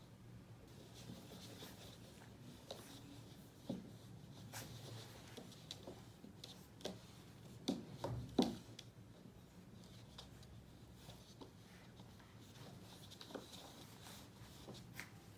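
Cocker spaniel puppy playing with a knotted fabric rope toy on a wooden floor: faint scratching and rustling with scattered light clicks and a few soft knocks, the loudest two about eight seconds in.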